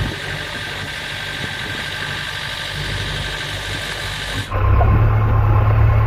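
JCB 3DX backhoe loader's diesel engine running steadily. About four and a half seconds in, the sound switches abruptly to a louder, lower engine drone.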